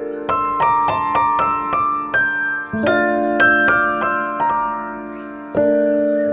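Background piano music: a melody of single notes over held chords that change about every three seconds.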